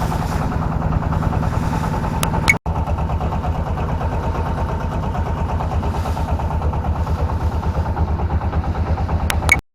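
Small boat's engine running steadily with an even pulsing beat. It cuts out for an instant about two and a half seconds in, then stops abruptly at the end.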